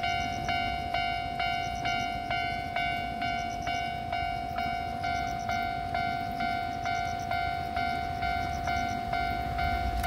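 Japanese railway level-crossing warning bell ringing, a steady repeating electronic ding about twice a second, signalling that a train is approaching.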